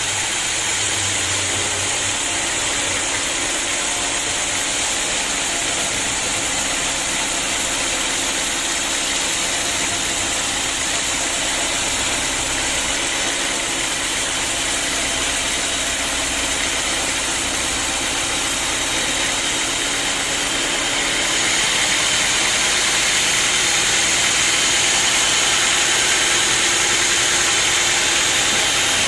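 Sawmill machinery running steadily with a loud high hiss, growing a little louder about three-quarters of the way through.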